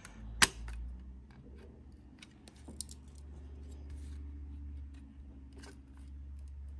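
Clicks and taps of a small screwdriver pushing drilled-out retaining pins through the back of a chrome plastic bowtie emblem: one sharp click about half a second in, then a few lighter ticks, over a low steady hum.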